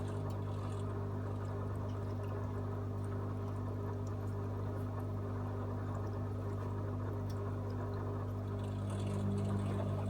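AEG Öko-Lavamat 74780 front-loading washing machine running mid-programme with a steady low hum, slightly louder near the end.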